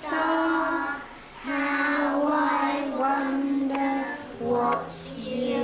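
Young children singing a song together, with long held notes one after another.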